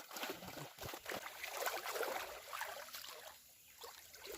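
Water splashing and trickling in uneven little bursts, dying down about three seconds in.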